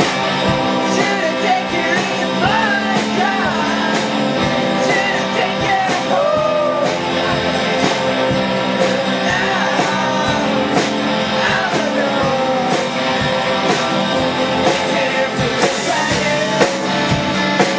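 Live rock band playing loud electric guitars, bass and a drum kit, with a wavering, bending lead melody over steady chords and regular drum hits.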